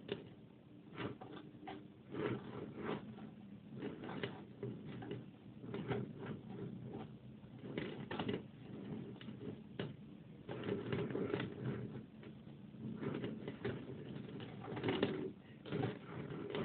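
Mice scratching, gnawing and scurrying: a run of irregular small scrapes and clicks.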